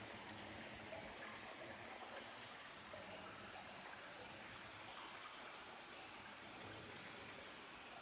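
Faint, steady trickle of water flowing in a shallow cave stream.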